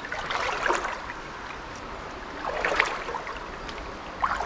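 Shallow river water sloshing and splashing around a person's legs as they wade, in three separate bursts.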